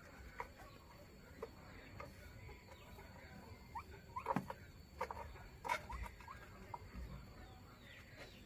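Faint, short squeaky bird calls, scattered and busiest in the middle, with a few sharp clicks.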